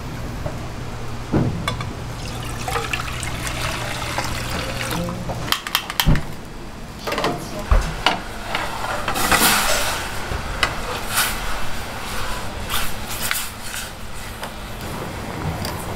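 Broth being ladled and poured in a restaurant kitchen, with splashing liquid and sharp knocks of a metal ladle, pan and tongs as rice cakes and fish cakes go into the simmering pan. A steady low hum runs under the first five seconds and stops.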